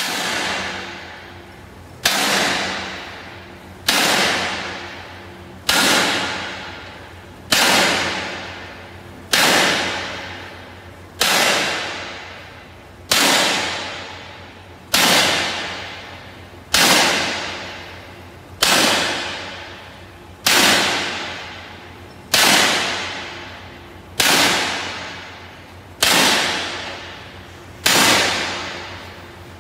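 Hand hammer striking a flat steel plate ring, about one blow every two seconds, as the ring is beaten into a cone for a pipe reducer. Each blow is a sharp metallic clang that rings on and fades before the next.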